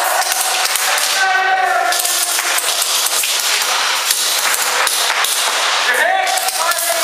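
Airsoft guns firing indoors: a steady spatter of sharp cracks and metallic clangs. A voice calls out twice, about a second in and again near the end.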